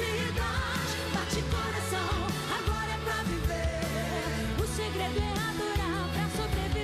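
Woman singing a gospel pop song into a microphone over a backing band with a steady drum beat.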